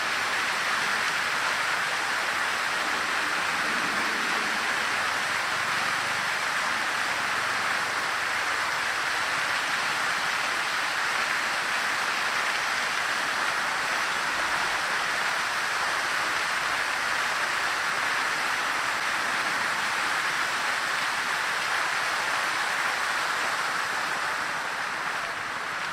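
Fountain water splashing steadily down into its basin, an even hiss that eases slightly near the end.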